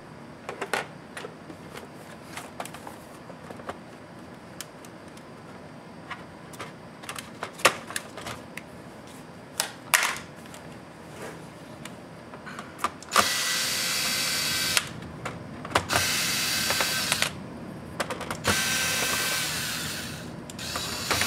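Scattered light clicks and taps as the laptop's plastic case is handled. About 13 seconds in, a cordless electric screwdriver starts running in four short bursts, each lasting up to about two seconds, as it backs out the screws of the bottom cover.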